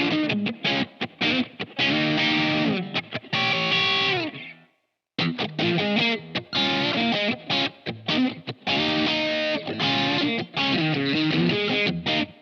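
Electric guitar, an SQOE SEIB400 with Alnico HSS pickups, played through distortion in a sound test: quick runs of notes, then a held note that slides down in pitch and dies away about four and a half seconds in. After a brief stop, the playing starts again.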